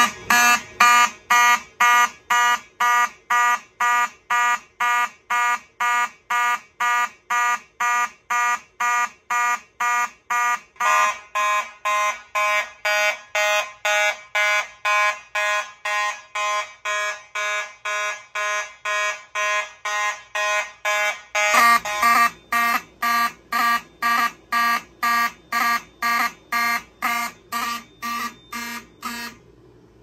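Vintage fire alarm horns sounding in an even pulse of just under two blasts a second, set off from a Simplex 4251-20 pull station. Their tone shifts twice, and they cut off suddenly near the end.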